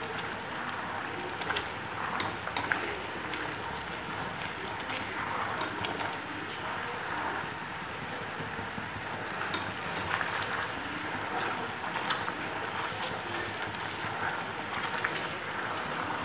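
Sugar syrup boiling hard in a stainless steel pan: a steady bubbling with many small pops, as the sugar dissolves fully in the water.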